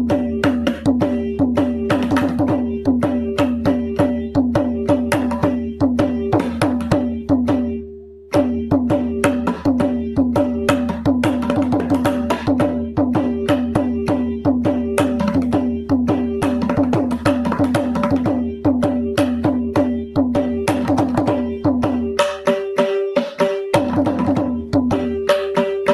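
Mridangam played in fast, dense rolls of strokes over a steady drone tone, with a short pause about eight seconds in.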